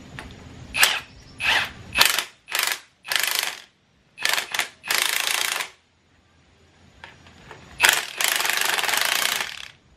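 Cordless Milwaukee impact wrench hammering on a strut's top mount nut, in a string of short bursts and then a longer run of about two seconds near the end.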